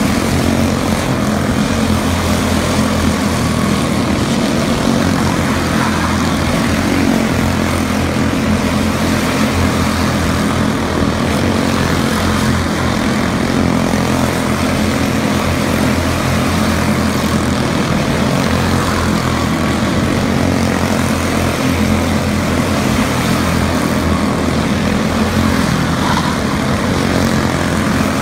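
A pack of quarter midget race cars with small Honda four-stroke engines running at speed around the oval, their engines blending into one loud, steady drone.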